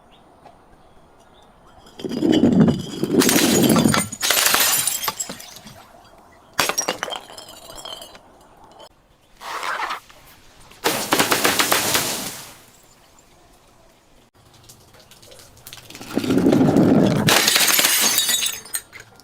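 Glass being broken and crushed, with a crackling crunch in about six separate bursts of a second or two each.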